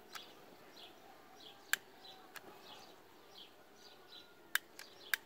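A handful of sharp clicks from a long-nosed utility lighter being triggered, loudest about a third of the way in and twice near the end, over faint bird chirps.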